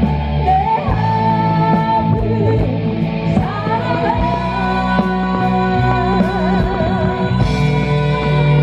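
Live band music: a woman singing lead over electric guitars, bass guitar, drums and keyboard. In the second half her voice holds a long note with vibrato.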